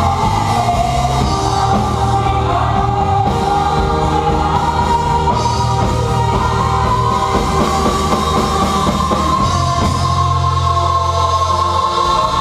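Band music with singing over a bass line and drums, loud and continuous.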